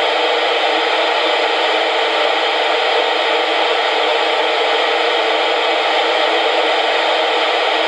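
Steady hiss of FM receiver noise from a Yaesu transceiver tuned to 55.150 MHz, with no signal coming through to quiet it: the walkie-talkie's transmission is not being received.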